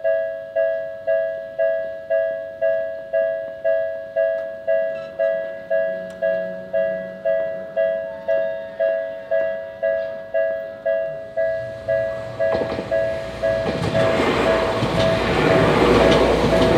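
Japanese railway level-crossing warning bell ringing steadily, about two strokes a second, as the crossing closes. From about twelve seconds in, a commuter train approaches and passes, its rumble and wheel noise building until it is louder than the bell.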